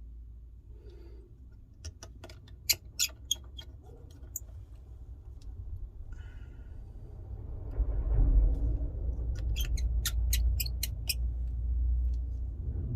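Small tools and phone parts handled during iPhone 12 reassembly: two clusters of sharp little clicks and taps, about two seconds in and again about nine to eleven seconds in, over a low handling rumble that swells in the second half.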